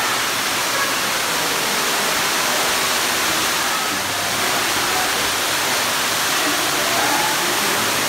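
Underground cave waterfall dropping about 90 feet into its pool: a steady, unbroken rush of falling water.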